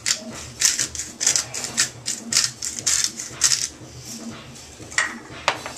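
Seasoning rattling in a shaker as it is shaken over meat in quick rhythmic bursts, about three or four a second, stopping a little past halfway; two sharper clicks follow near the end.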